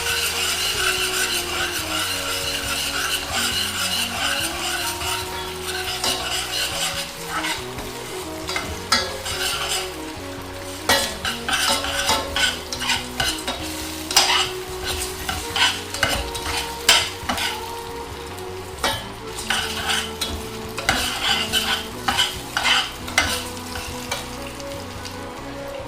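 Onions and rice frying in oil in a pan, sizzling steadily while a utensil stirs them. From about ten seconds in, the utensil scrapes and clicks sharply against the pan many times.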